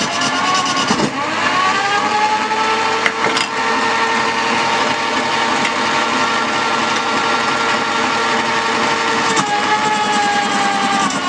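Wood-turning lathe running, its motor hum dropping in pitch about a second in, holding steady, and rising again near the end. A brief sharp knock about three seconds in.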